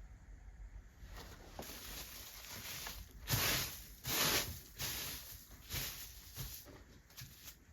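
Handling noise: a series of short rustling strokes, the two loudest a little over three and four seconds in, with smaller ones after.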